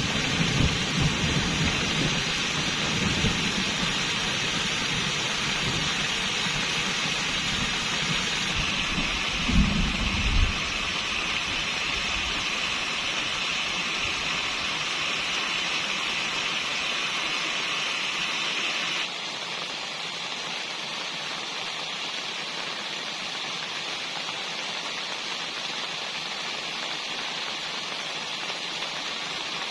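Steady heavy rain with low rolling rumbles of thunder through the first ten seconds or so, the loudest about ten seconds in. After that only the rain remains, and about two-thirds of the way through it drops suddenly to a lower, even level.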